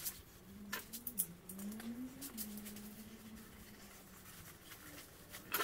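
Faint scuffs and clicks of an old car tyre, its sidewall cut into a sawtooth, being handled and flexed by gloved hands on a concrete floor, with a louder clatter near the end.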